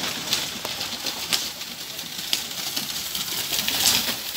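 Muddy water splashing and spraying under the hooves of a pair of racing Kambala buffaloes galloping through a flooded track, with many sharp splashes. It swells to its loudest as they pass close, near the end.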